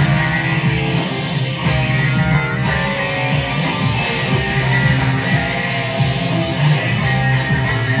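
Live band music, led by an electric guitar over a strong bass and a steady, evenly ticking beat.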